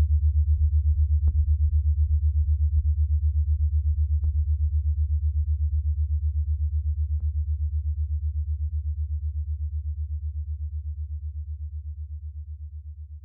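Ambient synthesizer background music: a low, rapidly pulsing drone with a few faint ticks, fading out over the second half.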